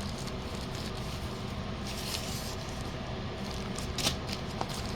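Faint handling sounds: a short rustle about two seconds in and a few light clicks later, over a steady low background hum.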